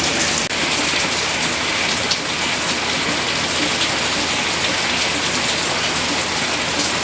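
Heavy rain heard from inside a shed: a steady, dense hiss of rain, loud enough to nearly drown out a voice, with a brief dip about half a second in.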